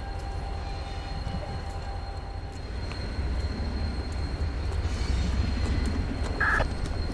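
Approaching freight train's diesel locomotives rumbling low and steady, growing louder about three seconds in, with a brief high-pitched tone near the end.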